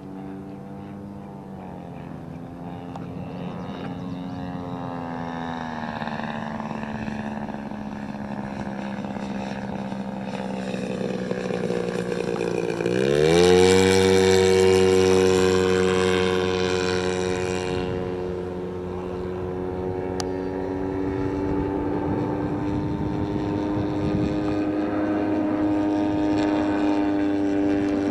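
Radio-controlled scale Cessna 182 model in flight, its motor and propeller droning with a pitch that drifts up and down. About halfway through the pitch dips, then rises sharply. It is loudest for a few seconds as the plane passes low and close, then holds a steadier, higher pitch.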